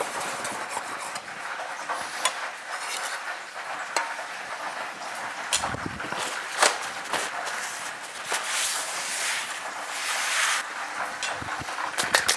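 Utensils and dishes knocking and clinking on a kitchen counter, a handful of separate sharp knocks, over a steady sizzle of breaded fish frying in hot fat.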